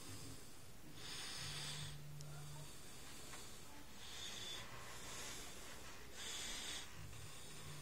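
A person breathing close to the microphone: a few soft, hissy breaths, each about half a second to a second long, every second or two.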